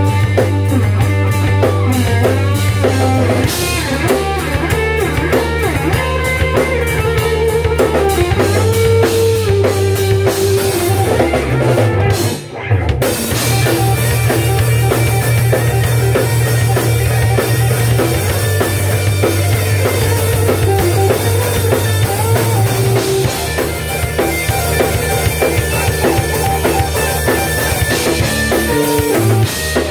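Rock band playing live on drum kit and electric guitars, with a short break about twelve seconds in before the band comes back in.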